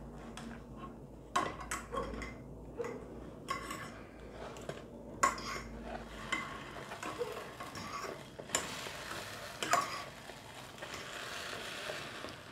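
Metal fork scraping and clinking against a nonstick frying pan while a thin crust is turned over, in scattered short strokes.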